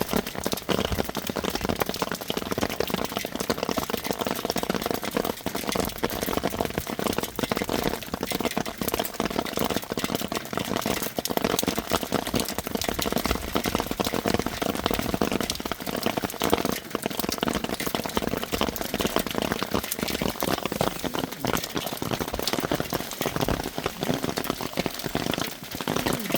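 Hail falling hard: a dense, continuous clatter of countless small hailstones striking a surface.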